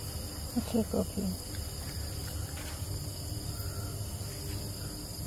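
Steady chorus of crickets, a continuous high trilling, with a few quiet spoken words about a second in.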